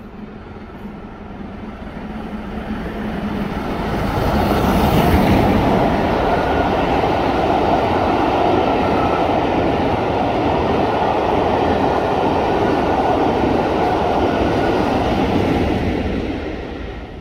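LMS Jubilee class three-cylinder 4-6-0 steam locomotive 45596 Bahamas running by with its train of coaches, wheels rumbling on the rails. The sound builds over the first four seconds as the engine draws close, holds steady while the coaches pass, and fades near the end.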